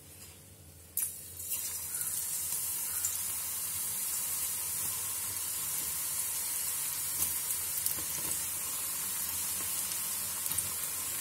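Thin slices of elephant yam dropped into hot oil and deep-frying: a sharp sizzle starts suddenly about a second in and settles into a steady hiss, with small pops as more slices go in.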